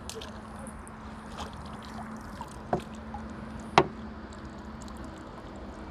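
Water sloshing and dripping as a crucian carp is handled in a landing net at the water's surface, with two sharp knocks, the louder about four seconds in, over a steady low hum.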